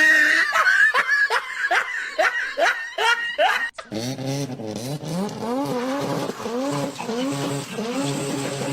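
Laughter in a quick run of high 'ha-ha' sounds for about three and a half seconds, then a lower, wavering, repeated sound to the end.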